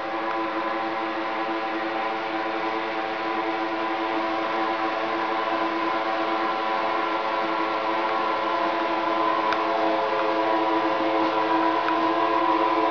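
Battery-powered Power Rise lift motors of seven Hunter Douglas Applause honeycomb shades running together as the shades lower: a steady whine of several overlapping motor tones that gets a little louder over the last few seconds.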